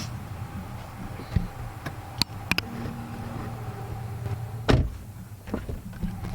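A vehicle's low steady hum, with a few sharp clicks and one heavier thump about three-quarters of the way through.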